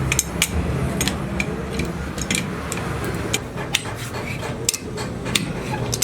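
Irregular light metallic clinks and taps, several a second, from metal parts and hand tools being worked, over a low steady hum.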